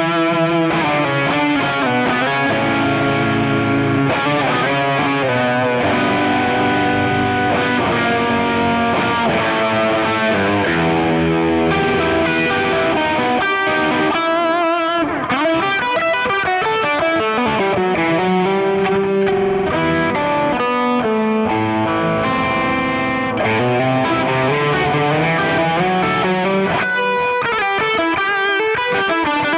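Electric guitar with humbucker pickups played through a Klon Centaur overdrive pedal with its gain at maximum and treble at a moderate setting: a run of overdriven notes and chords, with wavering held notes about halfway through.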